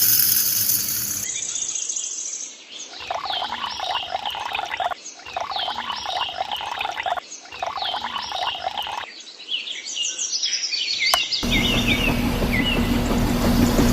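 Repeated chirping calls in three short segments with abrupt cuts between them. About eleven seconds in, a steady machine engine starts running with a low hum, likely the concrete mixer's engine.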